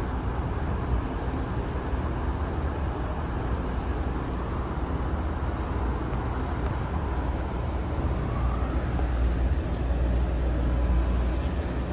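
Steady low mechanical rumble and hum of a cruise ship's machinery as the mooring line is wound back aboard, with a faint steady whine above it and a faint rising whine about eight seconds in.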